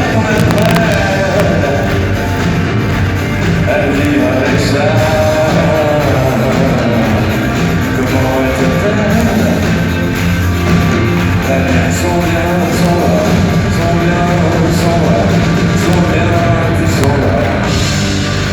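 Rock band playing live in a concert hall, steady and loud, with distorted, poor-quality sound.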